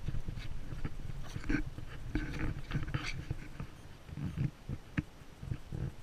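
Miniature poodle puppy making short, high whining sounds, mixed with irregular clicks and rustles.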